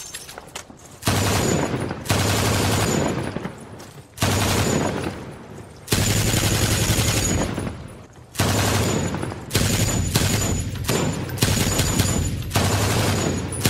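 War sound effects: a series of about ten blasts of gunfire and explosions, each starting suddenly and dying away over about a second, coming closer together in the second half.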